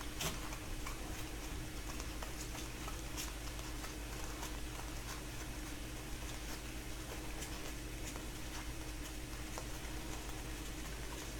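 A stack of 2015-16 Upper Deck Series 1 hockey cards being thumbed through by hand, card edges flicking and sliding in soft irregular clicks, over a steady low hum.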